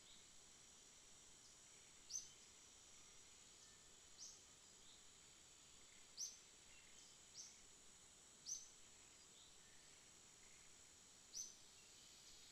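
Faint forest ambience: a bird repeats a short, high call every two seconds or so over a steady, thin, high insect drone.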